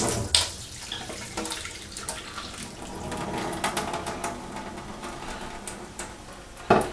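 Curdled milk and vinegar being poured through a sieve, the whey splashing and trickling through, with small clinks from the sieve and container. A clatter at the start and a sharp knock near the end.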